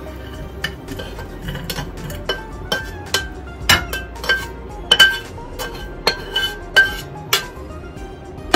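Metal spatula clinking and scraping against a ceramic plate and frying pan as stir-fry is served out of the pan: a run of sharp clinks, about two a second, some ringing briefly.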